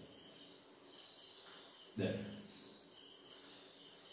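Steady high-pitched insect chirring, crickets in the background. A short low voice sound comes about two seconds in.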